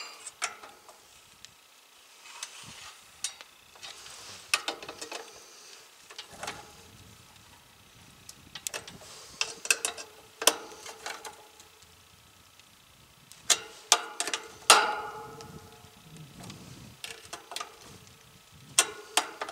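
Irregular metal clicks and taps of a hand tool on the nuts that hold the fan motor to the top grille of a heat pump's outdoor unit, as they are tightened down. A few of the clicks ring briefly, the loudest a little before the last quarter.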